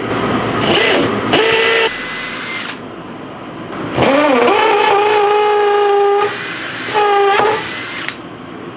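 Handheld power tool cutting into the anchor pulpit, run in several trigger bursts. The motor whine dips and recovers as the longest burst starts, then holds steady for about two seconds.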